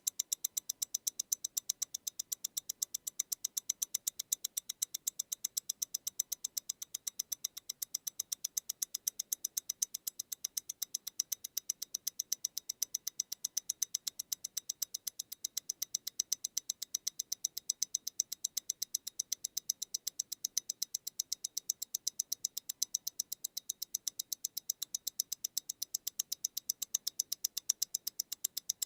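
MEMORIGIN Stellar tourbillon mechanical wristwatch ticking steadily at 28,800 vibrations per hour: an even run of high, light ticks, about eight a second.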